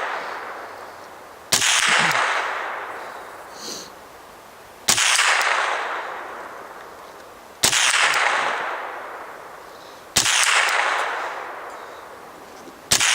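Single gunshots fired at a slow, steady pace, about one every three seconds: four sharp cracks, each trailing off into a long fading echo, with a fifth right at the end.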